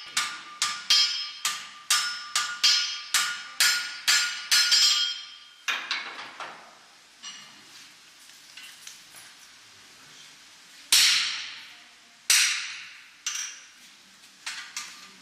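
Blacksmith's hammer striking hot iron on an anvil, the anvil ringing with each blow. The blows come steadily, about two to three a second, for the first five seconds, then only a few scattered strikes follow, the loudest about eleven seconds in.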